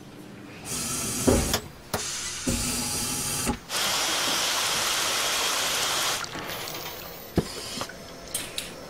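CNC milling machine cutting under a coolant spray: a loud, steady hiss of spindle and spraying coolant that comes in runs, the longest lasting about two and a half seconds. A few sharp mechanical knocks and clicks fall between the runs and near the end.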